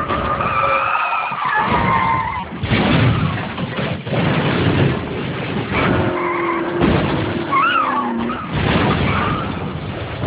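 Road traffic with vehicles passing close by in repeated surges of engine and tyre noise, and a few short high gliding tones sounding over it.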